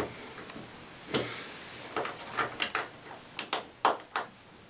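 Allen wrench working the set screw of a bathtub faucet handle collar to clamp it onto the valve stem: a string of sharp, irregular metal clicks and taps, about ten in all, bunched in the second half.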